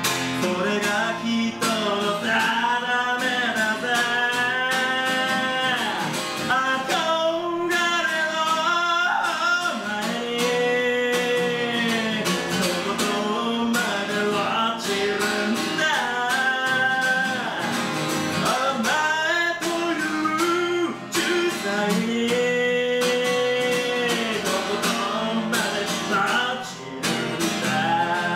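Man singing a song while strumming an acoustic guitar, with a few long held notes, the longest around the middle and again about three-quarters of the way through.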